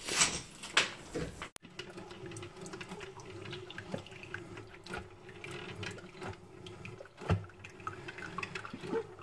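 Drip coffee maker brewing, a thin stream of coffee trickling into a ceramic mug over a steady low hum. There is a second and a half of rustling and knocks at the start, then a sudden change to the brewing sound.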